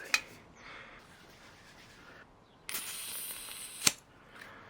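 CO2 gas hissing briefly as a cartridge is pierced in an airgun magazine. The hiss lasts about a second and ends in a sharp click, with fainter handling noise and hiss before it.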